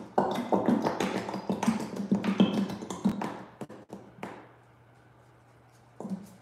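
A quick, dense run of taps and knocks on a plastic bottle held upside down and shaken over a measuring cup to drain the last of its resin. The tapping stops about four seconds in, and a couple more taps come near the end.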